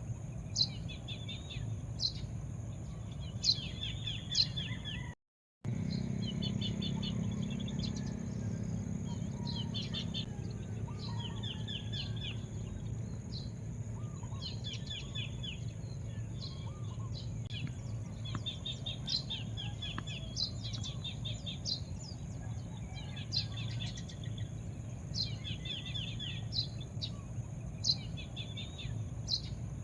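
Birds chirping: short rapid trills repeated every second or so, with sharp high notes between them, over a steady low background rumble. The sound drops out completely for a moment about five seconds in.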